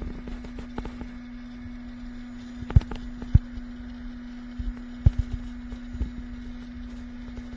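A steady hum at one pitch with low rumble, broken by a few loud sharp knocks and clicks, as of things being handled close to the microphone.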